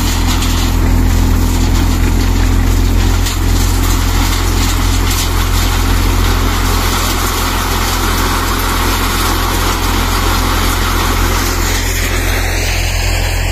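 Tractor-driven four-fan thresher running steadily on the tractor's engine, a loud, unchanging hum with machine noise over it.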